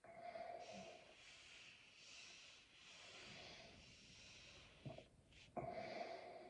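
A person breathing noisily and faintly through the mouth and nose, the air hissing unevenly. There is a short throaty, pitched sound at the very start and another near the end.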